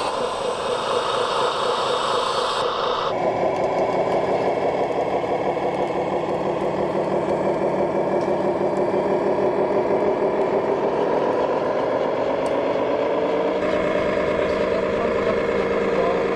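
Simulated diesel truck engine from the sound modules of radio-controlled model trucks, running steadily with a fine rhythmic beat. Its note changes suddenly about three seconds in and again near the end.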